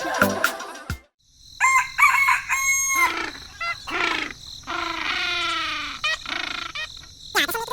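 A rooster crowing several times, with clucking, after background music cuts off about a second in.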